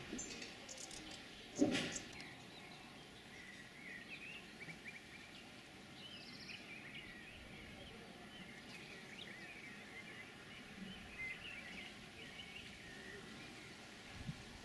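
Small birds chirping and twittering on and off in trees and scrub, over a quiet outdoor background. A single sharp knock comes about one and a half seconds in, the loudest sound.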